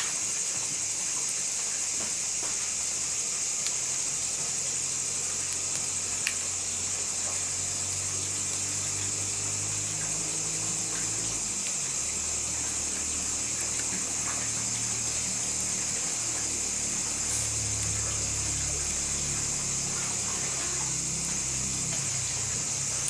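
Open wood fire of split bamboo and logs burning, with scattered small crackles and pops, over a steady high-pitched hiss and a low hum.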